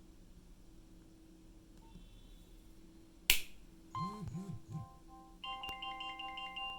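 A single loud sharp click a little over three seconds in, then a Nokia 6030 ringtone starts: an electronic melody of beeping tones, several notes at once, thickening about a second later, with a low pulse swelling and fading beneath it in groups of three.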